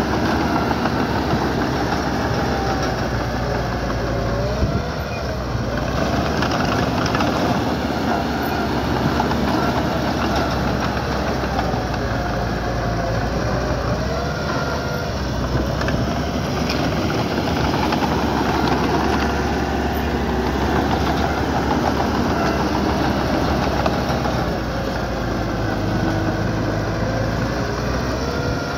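Diesel engine of small earthmoving equipment running under load, its pitch rising and falling again and again as it works.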